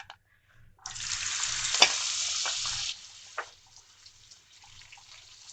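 Soaked, water-washed almonds dropped into hot oil in a frying pan: a sudden loud sizzle starts about a second in and dies down to a quieter sizzle after about two seconds, with a couple of sharp clicks.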